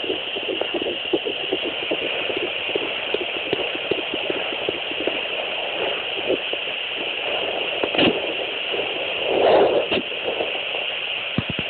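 Unborn baby's heartbeat picked up by a fetal Doppler: a fast, even train of whooshing pulses over steady hiss. The beats fade after about six seconds into rushing noise, with a knock about eight seconds in and a louder swish about a second later.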